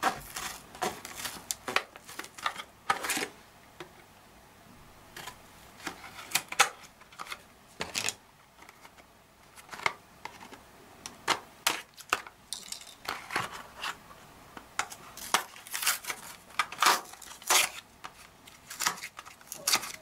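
Stiff plastic blister packaging being worked open by hand: irregular sharp crackles and clicks with a couple of short pauses. Later the plastic crinkles along with the cardboard backing and the drive's anti-static bag.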